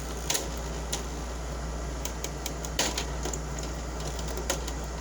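2007 Frigidaire 5200 BTU window air conditioner running with a steady hum, its compressor on, while its plastic front panel is handled, giving a few sharp clicks and knocks, the loudest about a third of a second in and near three seconds in.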